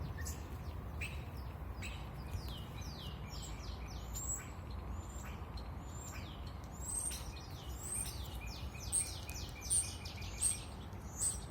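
Songbirds singing: a busy run of quick, high chirps and downward-sliding notes, thickening a few seconds in, over a steady low rumble.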